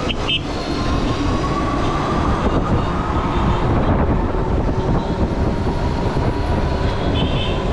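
Wind rushing over the microphone and road rumble from a moving electric bike, with a steady electric-motor whine that drifts slightly up and down in pitch. Two short high beeps sound, one just after the start and one near the end.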